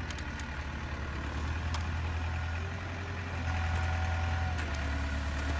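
Heavy diesel engine sound of a wheel loader running steadily, getting louder about three and a half seconds in, with a couple of faint clicks.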